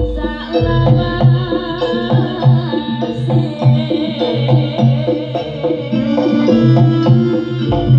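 Live Javanese kuda lumping accompaniment: drums playing a fast, regular rhythm over ringing metallic pitched percussion, loud and continuous.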